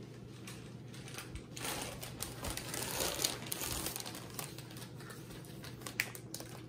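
Packaging rustling and crinkling as a gift is handled, with scattered light clicks and taps; the rustling is busiest from about a second and a half in until near the middle.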